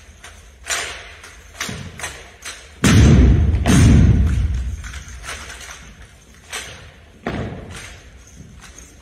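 Drill rifles handled in unison by a drill team: sharp clacks and slaps of hands on rifles. Two heavy thumps come about three and four seconds in, as rifle butts strike the wooden gym floor, and they ring on in the large hall.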